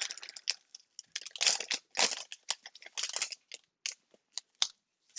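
A trading-card pack wrapper being torn open and crinkled by hand: irregular crackling and tearing, with a few short sharp crackles near the end.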